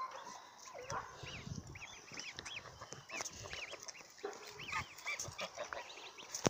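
Domestic goslings peeping: many short, high, arched chirps repeated all through, with a few lower calls from the adult geese in the first second or so.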